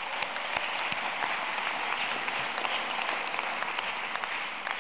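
Audience applauding steadily, a dense wash of hand claps that tapers off near the end.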